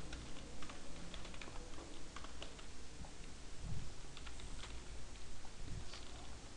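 Typing on a computer keyboard: irregular runs of short key clicks.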